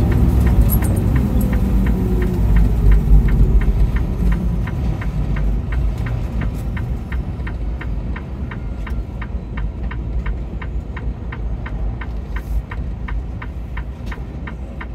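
Vehicle hazard flasher ticking evenly, a little over two clicks a second. Under it is a low road-and-engine rumble that eases off over the first few seconds.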